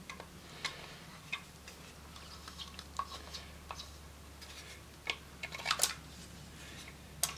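Scattered light clicks and taps from the clear plastic base and metal fittings of a cheap trim router being handled and adjusted by hand, with a few louder clicks about five to six seconds in and near the end.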